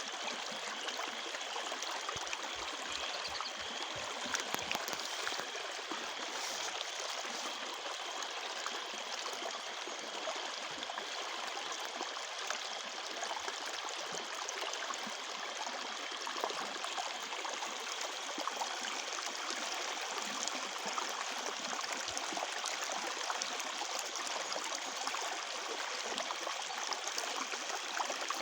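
Running water flowing steadily, a continuous rushing and gurgling, with crickets chirping behind it.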